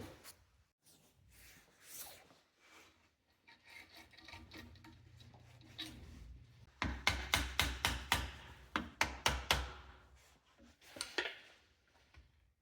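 Hand scraping and rubbing strokes on a removed outboard starter motor being cleaned of dirt, scattered at first, then a quick run of about a dozen strokes, roughly four a second, in the middle.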